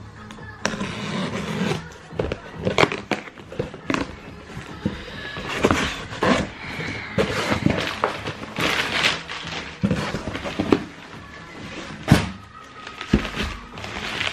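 A cardboard shipping box being opened and handled: flaps pulled back, cardboard rustling and scraping, with many sharp knocks and thumps. A music mix plays underneath.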